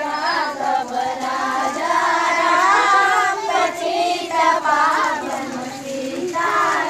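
A group of children singing together in unison, their voices holding long, wavering notes, with a short lull near the end before they pick up again.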